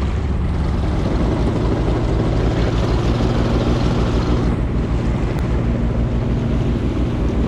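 Small boat's outboard motor running steadily while the boat is under way, with water rushing past the hull and wind buffeting the microphone.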